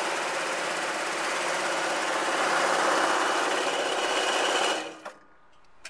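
IBM 083 punched-card sorter running a deck of cards through, its feed rollers and belts making a fast, even clatter. The clatter stops about five seconds in as the run ends, followed by a faint click or two.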